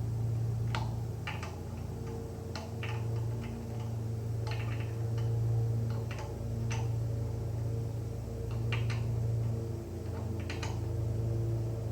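Scattered sharp metallic clicks and clinks of tools and suspension hardware being handled during a front control arm and coilover install, over a steady low hum.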